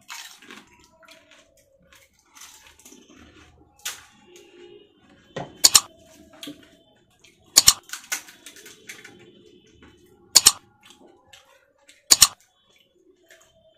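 Crisp fuchka (pani puri) shells crunching as they are bitten into: four sharp crunches roughly two to three seconds apart, with quieter scattered handling sounds between.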